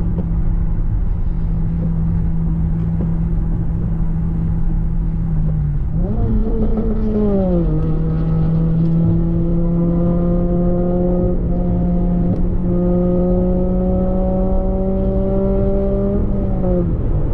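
Car engine heard from inside the cabin over steady road rumble. It holds a steady note, revs up and back down about six seconds in, then climbs slowly in pitch as the car accelerates and drops back near the end.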